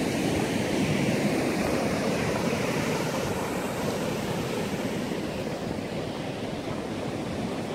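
Ocean surf on a sandy beach, a steady wash of noise, with wind buffeting the microphone; it eases slightly toward the end.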